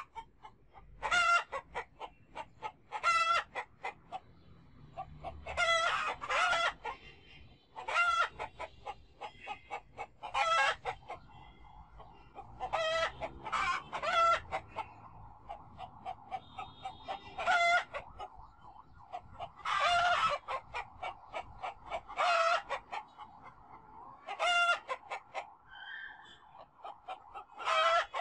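Domestic fowl calling: short, loud, pitched calls repeat about every two seconds, and from about twelve seconds in a steady background chorus of birds joins them.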